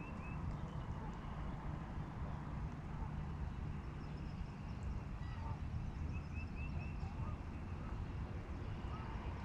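A bird calling in short runs of four or five quick high notes, once at the start and again about six seconds in, over a steady low rumble.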